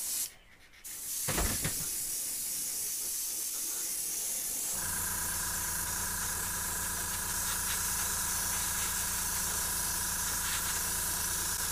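An airbrush spraying fluorescent yellow paint: a steady high hiss of air and atomised paint. About five seconds in, a steady low motor hum starts and runs under it.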